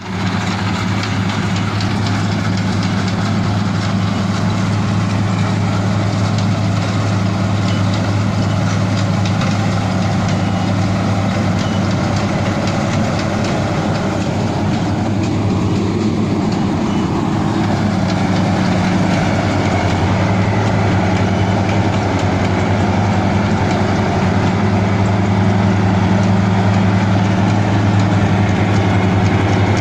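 Engine of a small rice-harvesting machine running steadily at constant speed: a low, even engine note under a dense rattling mechanical noise.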